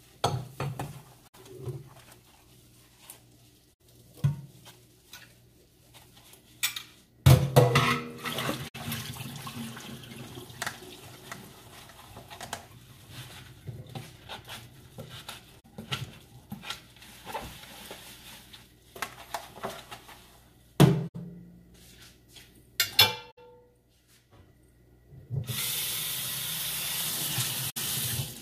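Washing up at a kitchen sink: scattered knocks and clatter of dishes, with the tap running in a steady stream for about three seconds near the end, then shut off.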